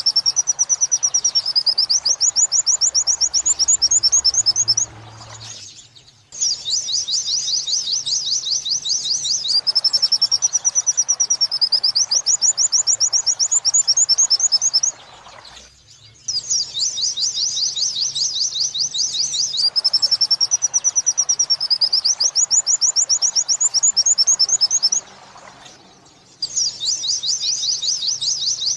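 White-eye (pleci) song in the 'wit-wit sambung kuntilanak' style, played as a repeating mastering recording: runs of rapid, high chirped notes with a wavering whistle between them. The phrases repeat about every ten seconds, each broken by a short pause, three times.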